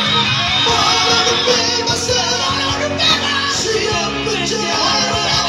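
Male vocal trio singing in harmony into microphones over amplified backing music, with the first and third voices holding long, wavering notes against each other in a contest of sustained singing.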